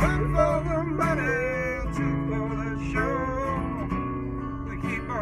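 Blues played live on a guitar, strummed chords under wavering, bent lead notes, as the song is brought to its close.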